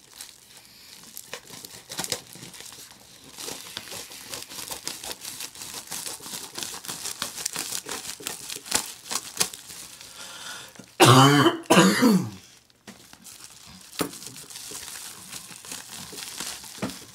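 A plastic poly mailer crinkling and tearing as it is pulled open by hand. About eleven seconds in, a man coughs twice, loudly; he is still getting over being sick.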